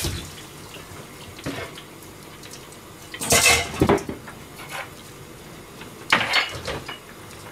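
Stainless steel mixing bowls clattering as they are handled on a steel counter: two bursts of metal clanking about three seconds apart, the first with several quick strikes.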